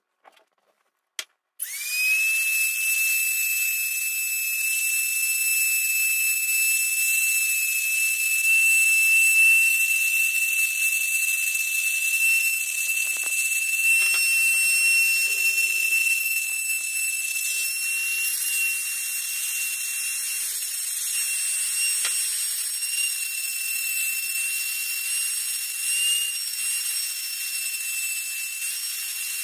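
Handheld rotary tool switched on about two seconds in and running at high speed with a steady high whine. Its abrasive stone bit is grinding the steel jaws of needle-nose pliers.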